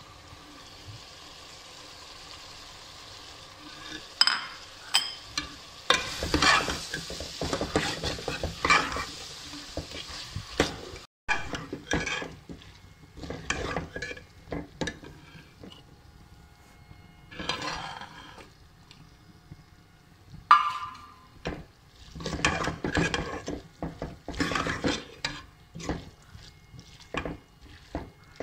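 Vegetables sizzling as they fry in a metal pot, and a metal spoon stirring and scraping against the pot. The scraping comes in irregular runs of quick strokes from about five seconds in.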